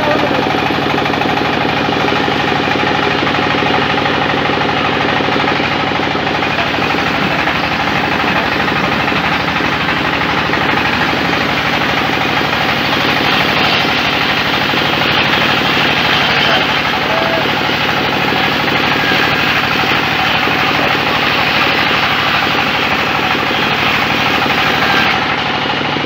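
Large vertical band saw running and ripping a slab off a whole log: a steady mechanical drone with the hiss of the blade in the wood, growing brighter from about halfway through.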